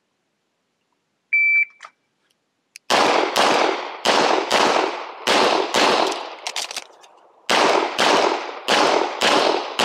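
A shot timer beeps once as the start signal. About a second later a pistol opens fire in quick pairs of shots, about half a second apart, and the shots come faster near the end.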